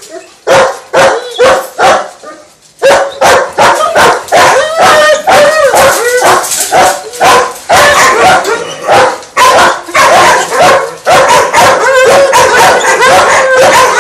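Several German shepherd dogs barking rapidly and repeatedly. The barks are spaced out at first, then come thick and overlapping from about three seconds in.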